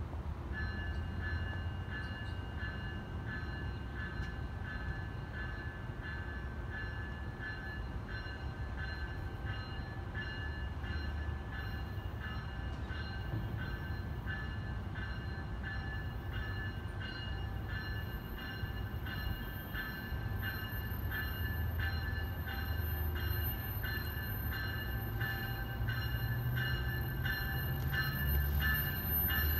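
A train approaching from a distance: a low rumble that grows louder toward the end, under a steady high ringing tone. Faint regular clicks join in from about halfway through.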